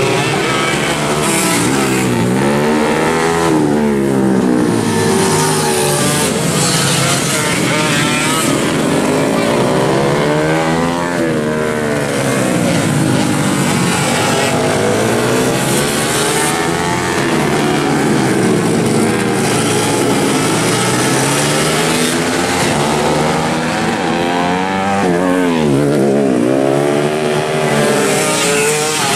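Yamaha F1ZR two-stroke road-race motorcycles revving hard as they pass one after another, the engine pitch climbing and then dropping every few seconds.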